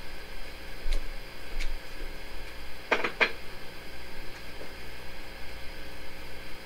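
A few light clicks and knocks as objects are handled, the loudest a quick run of three or four clicks about three seconds in, over a steady low room hum.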